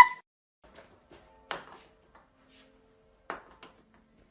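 Two short knocks or taps about two seconds apart, with a faint low hum in between.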